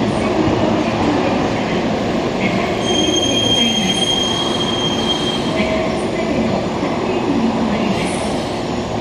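Nankai 8300 series electric train rolling in and slowing to a stop alongside the platform, with steady running noise and a high, steady squeal for about two and a half seconds in the middle.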